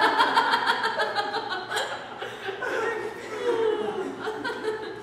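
A group of people laughing and chuckling together, the laughter trailing off toward the end.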